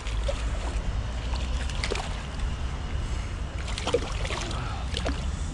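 A small hooked chub splashing and thrashing at the water's surface as it is reeled in, in a few short irregular splashes over a steady low rumble.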